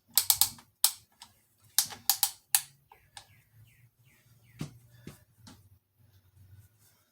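Sharp metal clicks and knocks from handling a strap-type piston ring compressor around a piston: a quick run of them in the first three seconds, then a couple of fainter ones around five seconds in.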